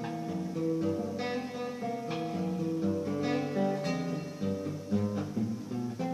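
Acoustic guitar playing an instrumental tune: a plucked melody over bass notes, with strummed chords about once a second.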